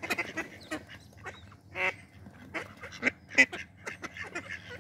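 Mallards, a hen and her ducklings, making a string of short calls, the loudest about three and a half seconds in.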